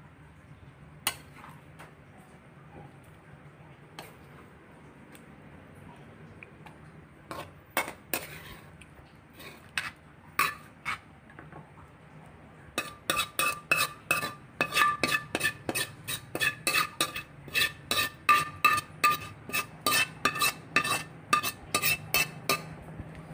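A metal ladle clinking against a ceramic serving dish and a stainless pan as food is served out, at first in a few scattered knocks. About halfway through come quick, ringing clinks, three or four a second, as the tipped pan is scraped out with the ladle.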